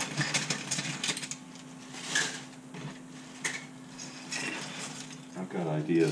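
A thin plastic shopping bag crinkling and rustling while small 3D-printed plastic scraps click and clatter as they are swept off a workbench into it, in irregular bursts.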